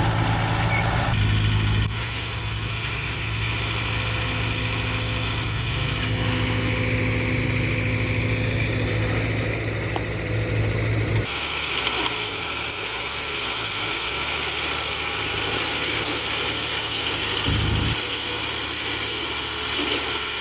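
Diesel engines of heavy earthmoving machines running steadily, the engine note changing abruptly about two seconds in and again about eleven seconds in.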